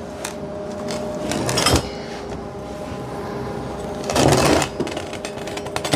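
Workshop handling noises: a few sharp clicks and two short clattering bursts, about a second and a half in and about four seconds in, over a steady background hum.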